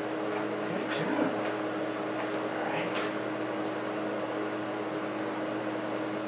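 Steady mechanical hum with a few even, held tones, and a faint tap about a second in and another at about three seconds.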